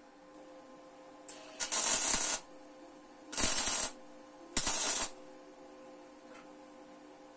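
Three short bursts of hissing, each about half a second long, a little over a second apart, over a faint steady hum.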